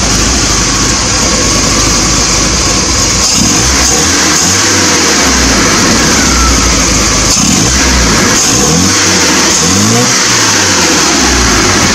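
1980 Triumph TR7's 2.0-litre slant-four engine running through its freshly fitted mid silencer, warming up. It is revved up by hand at the carburettor throttle linkage several times in the second half.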